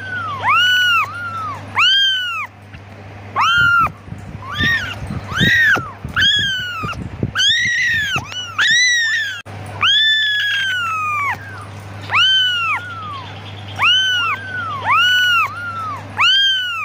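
Several young kittens meowing over and over, calling for their mother: short high calls that rise and fall in pitch, about one a second, with more than one kitten crying at once through the middle.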